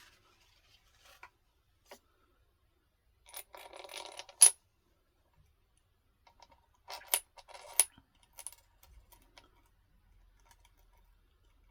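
Metal parts of a stringing machine clinking as they are handled. A short rattle about three and a half seconds in ends in one sharp clink, and two more sharp clinks come just before eight seconds.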